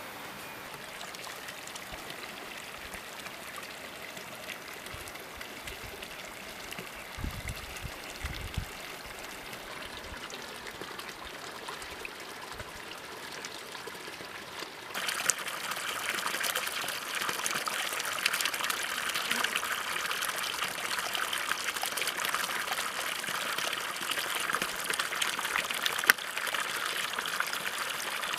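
Water running out of a small plastic pipe at the foot of a brick water basin into a ditch: a steady trickle that becomes a louder, dense splashing about halfway through.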